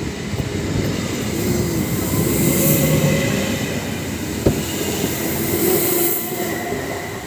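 A passenger train pulling out, with a steady rumble of wheels on the rails and faint drawn-out wheel squeal.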